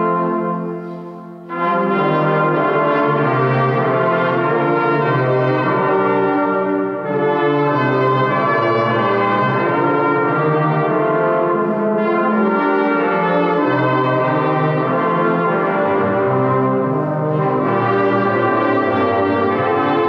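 Small brass ensemble of rotary-valve trumpets and trombone playing a slow chorale in a church. A held chord dies away in the reverberation, and the next phrase starts about a second and a half in, with brief breath pauses between phrases.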